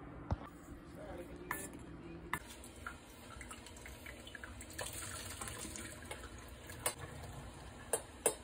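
Cooked macaroni and its water tipped from a pot into a mesh strainer over a stainless steel sink: water splashing and draining, with a few sharp knocks. A low steady hum stops about two seconds in.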